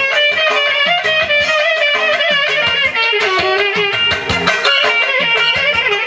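Lively instrumental music: fast plucked guitar-like notes carrying a wavering melody over a steady beat.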